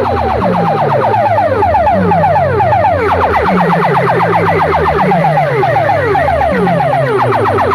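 Loud sound system playing a siren-style electronic effect: quick falling sweeps, about seven a second, over a deeper falling tone that repeats a little faster than once a second.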